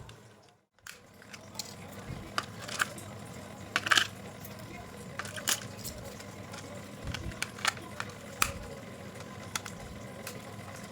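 Irregular clicks and light taps of hard plastic being handled, from the RC monster truck and its packaging, over a steady low background hum. The sound briefly cuts out almost to silence just under a second in.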